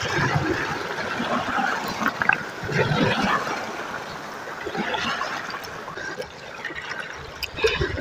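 Small sea waves washing in over a rocky, pebbly shore, a steady wash that swells and eases.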